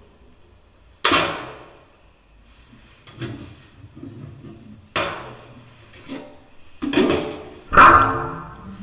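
Live contemporary chamber ensemble playing sharp, struck accents, each ringing away for about a second: one about a second in, another at about five seconds, and two close together near the end.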